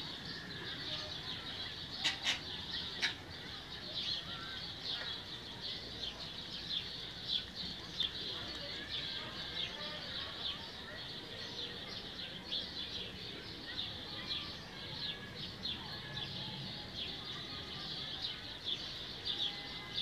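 Dense, continuous chorus of many small birds chirping, high-pitched short notes overlapping with no break. Two sharp clicks stand out about two and three seconds in.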